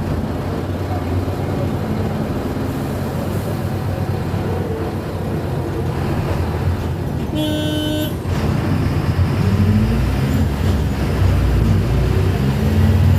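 Mercedes-Benz OF-1722M bus running, a steady low drivetrain drone with the differential growling. About seven seconds in, a brief horn toot sounds. In the last few seconds the drone grows louder and glides up and down in pitch.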